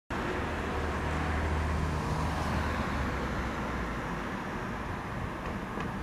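Steady low rumble and hum of road traffic, with a wash of outdoor noise; the low hum is strongest in the first few seconds.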